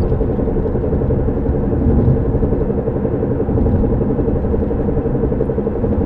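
Car driving with steady road rumble and a loud, wobbling hum from the driver-side front wheel area, a noise that grows with road speed and does not change with braking or turning. The owner cannot tell whether it comes from a bad tire or from the drivetrain.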